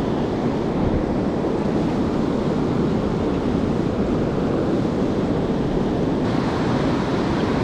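Steady rush of a fast river current with whitewater rapids close by, the river running high.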